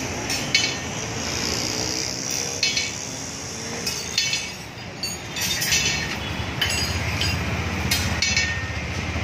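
Irregular sharp metallic clinks and taps, a dozen or so, over steady street traffic noise. A low engine rumble comes in about two-thirds of the way through.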